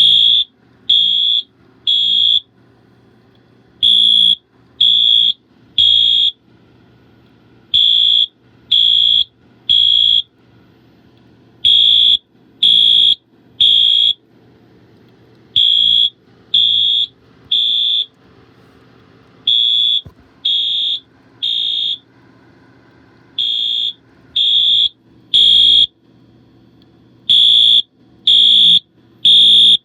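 Wheelock AS fire alarm horn sounding the temporal code 3 evacuation pattern on its low-volume setting: three loud horn blasts about a second apart, a pause, then three more, repeating eight times.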